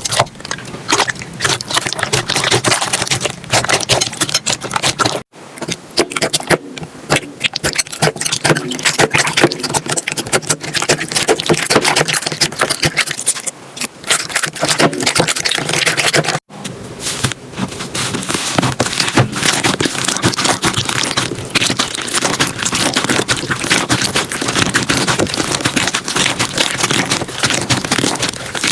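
Slime being squeezed, pressed and stretched by hand, with dense crackling and popping. The sound breaks off briefly twice, about five and sixteen seconds in, where one clip cuts to the next.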